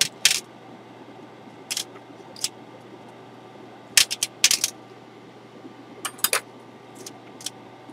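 Irregular small clicks and clinks of a circuit board, tweezers and a desoldered USB connector being handled on a metal tray, some coming in quick clusters, over a steady low hum.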